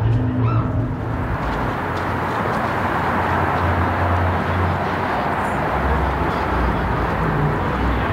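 Steady, loud rushing noise with a low rumble underneath, setting in about a second in.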